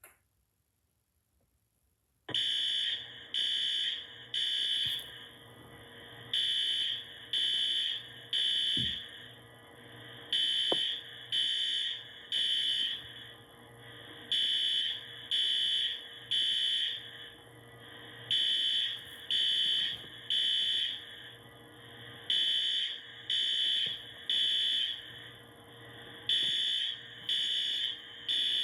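Fire alarm set off from a pull station starts sounding about two seconds in: a high-pitched beep three times in a row, repeating about every four seconds. This is the temporal-three evacuation pattern.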